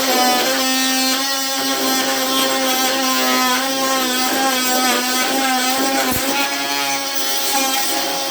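Ryobi brushed oscillating multi-tool running at speed with a steady high buzz, its blade cutting into wood trim; the pitch wavers slightly under the load of the cut.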